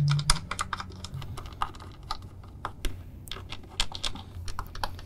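Irregular light clicks and taps of small bolts being started by hand through a steel seat plate into a plastic seat base.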